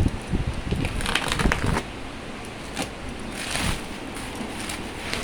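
Packaging being handled as the box is opened: plastic crinkling and rustling, with a dense run of sharp crackles in the first two seconds and a few scattered ones after.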